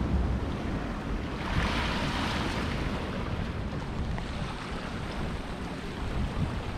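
Ocean surf washing against the jetty rocks, with a wave's wash swelling up about one and a half seconds in and easing off a second or so later. Wind rumbles on the microphone underneath.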